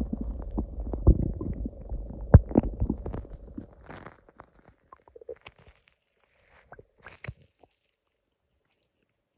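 Stomach growling: a loud, low rumble with gurgles and pops for about four seconds, then fading to a few faint gurgles.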